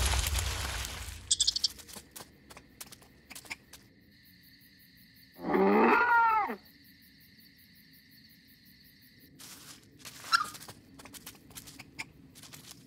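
Great horned owl giving one call, about a second long, midway through, its pitch wavering up and down. Before it, a loud low rumble dies away in the first two seconds, then faint scattered clicks and rustles follow.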